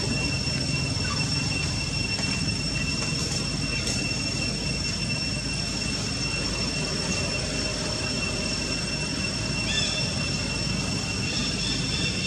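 Steady forest background: an even, high-pitched insect drone over a low rumble.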